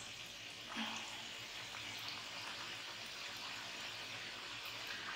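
Chicken rolls deep-frying in hot ghee over a medium flame: a steady, soft sizzle of fat bubbling around the wrappers.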